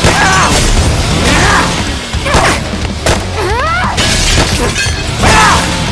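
Action-scene soundtrack: music under a run of crashing, shattering impacts, about one a second.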